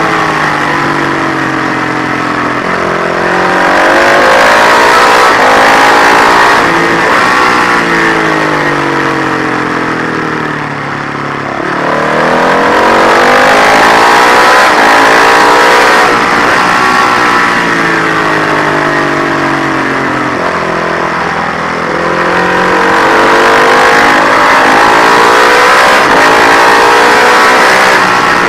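Matchless G50 single-cylinder four-stroke racing engine at full race pace, the revs climbing hard and falling away again several times as it accelerates along the straights and slows for the corners. It is quieter briefly about eleven and twenty-one seconds in, where the throttle comes off.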